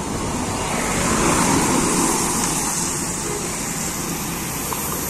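Road traffic passing close by on a damp road: the tyre and engine noise of a minivan, then a truck and a car, swelling about a second in and holding steady.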